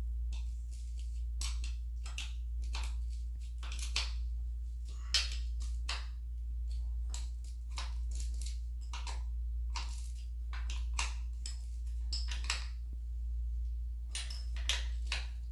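A wrench clicking and scraping against the nuts of double-nutted closet bolts as they are tightened down onto a plastic toilet flange: short metallic clicks at an uneven pace, about one or two a second, over a steady low hum.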